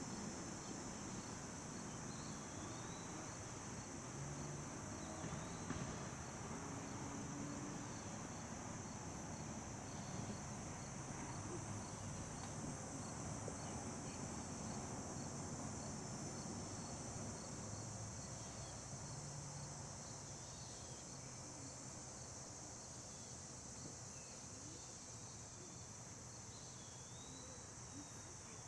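Steady, high-pitched insect chorus, with a fainter chirp repeating at an even pace over a low background rumble.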